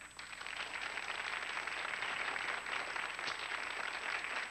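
Studio audience applauding: many hands clapping in a dense, steady patter that swells up over the first second.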